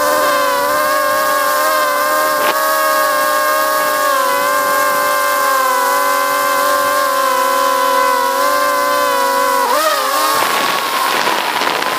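Quadcopter drone's electric motors and propellers, heard at close range from the camera on the drone, giving a steady whine of several tones at once. About ten seconds in the pitch dips and swings as the motors change speed, and the sound then turns rougher and noisier.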